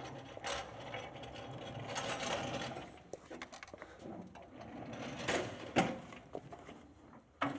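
Epson SureLab D3000 10-bin sorter cabinet rolled across the floor on its casters: a low rumble and rattle for about three seconds, then several knocks as it is pushed into place against the printer.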